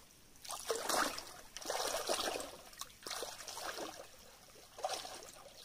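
Water in a shallow stream trickling and splashing, coming in several irregular swells.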